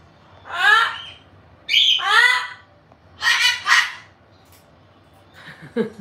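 A pet parrot gives three loud calls, each under a second long, with short gaps between them.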